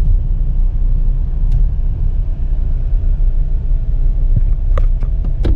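Car in motion, heard from inside the cabin: a steady low rumble of engine and tyres on the road, with a few short clicks or knocks near the end.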